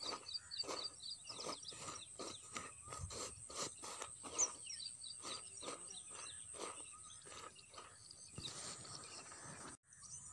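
Irregular soft scratching and rustling of a hand stirring dry rice bran and wheat flour fish-bait mix on a woven plastic sack, with small birds chirping in the background.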